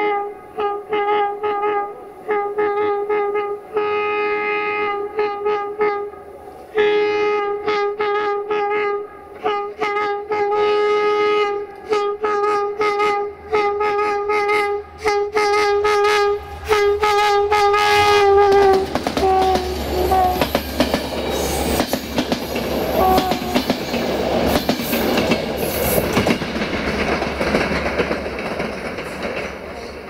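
Air horn of Romanian locomotive 65-1300-6 sounded at one pitch in a long, tune-like series of short and longer blasts, quickening into rapid toots in the middle, and stopping about 18 seconds in. Then the passenger train passes, rumbling, its wheels clattering over the rail joints.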